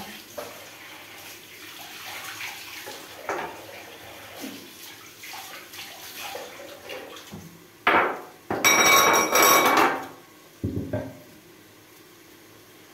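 Kitchen tap water running into the sink in one loud burst of about a second and a half, two-thirds of the way through. Around it, light clatter of dishes and utensils being handled at the sink, with a sharp knock just before the water and a couple of bumps just after.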